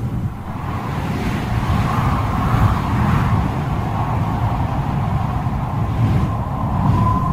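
Storm wind gusting against the microphone with heavy rain pouring down, a loud, irregular rumble. A steady high tone comes in near the end.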